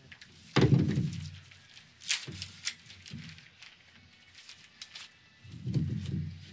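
Handling noise as steel throwing knives are unwrapped from newspaper: a heavy thump about half a second in, a few sharp clicks and rustles around two seconds, and another low thump near the end.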